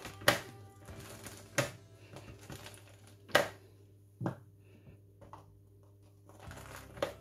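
A lemon half being pressed and twisted on a hand citrus juicer, with five sharp knocks spaced unevenly over several seconds. Faint background music runs underneath.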